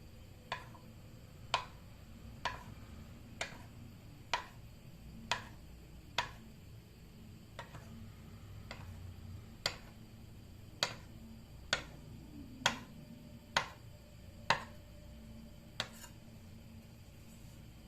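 Kitchen knife cutting food and knocking against a cutting board, about fifteen sharp strokes at roughly one a second, with a short pause partway through.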